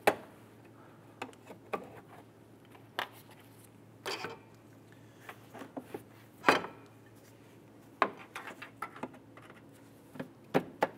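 Irregular plastic clicks and clacks as a trim tool pries out plastic push-pin buttons and the hard plastic air intake duct is handled, with the loudest knock about six and a half seconds in.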